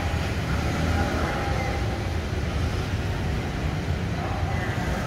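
Steady background ambience: a constant low rumble like distant traffic, with faint indistinct voices.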